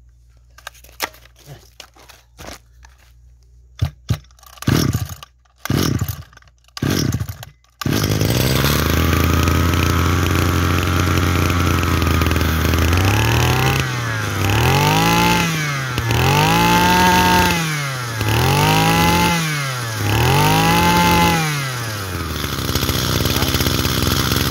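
Robin 232 33 cc two-stroke brush cutter engine being started: a few knocks and pulls, then it catches about eight seconds in and idles steadily. It is then revved up and back down five times before settling to idle.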